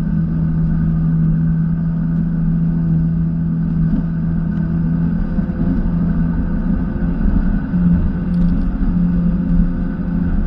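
Jet ski engine running steadily at a constant pitch over a heavy low rumble.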